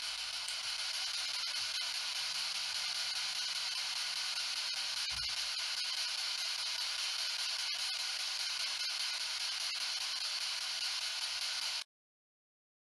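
Ghost box, a radio sweeping through stations, giving a steady hiss of static with a few faint clicks. It cuts off suddenly near the end.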